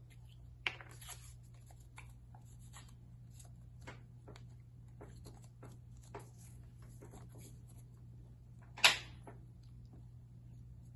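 Paper being handled and rubbed with a glue stick: soft rustles and light ticks, with a sharper tap just under a second in and a much louder sharp tap about nine seconds in, over a low steady hum.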